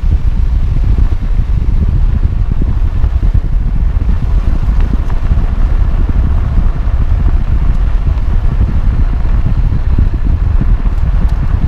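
Wind buffeting a microphone mounted low beside the front wheel of a moving 2009 Nissan Altima Hybrid, over a steady rumble of tyres on the road.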